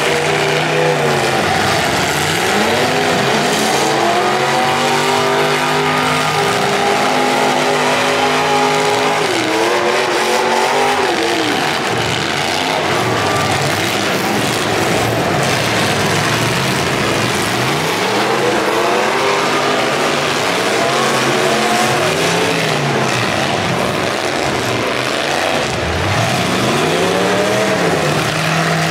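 Demolition derby car engines revving hard, several at once, their pitch rising and falling over one another above a constant loud din.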